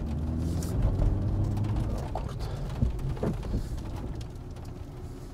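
Low, steady rumble of a car's engine and road noise heard inside the cabin, fading gradually over the few seconds.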